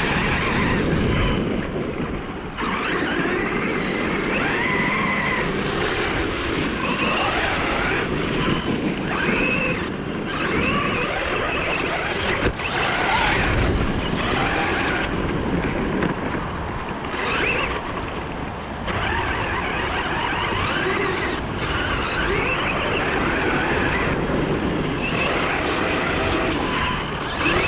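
ARRMA Talion 6S electric RC truck being driven hard on dirt: its brushless motor whines, rising and falling again and again with the throttle, over a steady rushing noise.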